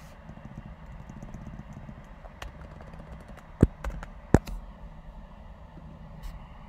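Typing on a computer keyboard: scattered light key clicks, with two much louder clicks about three quarters of a second apart near the middle, over a low steady hum.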